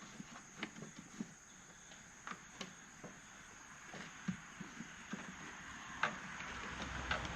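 Scattered light clicks and knocks from the ATV's air box cover being closed and latched over the new air filter. Crickets chirp steadily in the background.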